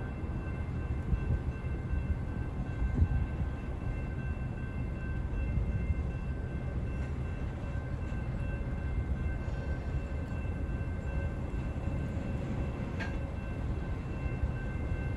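Railroad train passing: a steady low rumble of wheels on rails, with faint steady high tones above it and one sharp click about thirteen seconds in.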